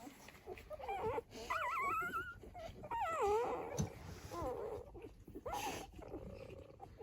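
Newborn Dalmatian puppies, six days old, squeaking and whimpering at feeding time: a run of short, wavering high cries that rise and fall in pitch, thickest between about one and four seconds in.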